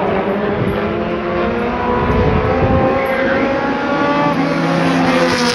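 Engines of a pack of compact race cars running together round the oval, several pitches overlapping, with some rising and falling as the cars pass.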